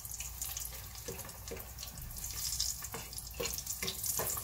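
Garlic cloves and salt sizzling in hot oil in a nonstick stockpot, stirred with a wooden spatula that scrapes and knocks against the pan several times.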